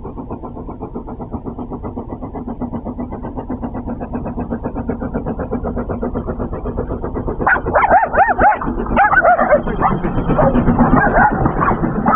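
Steam locomotive chuffing in a quick steady rhythm as it approaches, growing steadily louder, with a low rumble as it passes. From about halfway through, a dog barks repeatedly and excitedly over it.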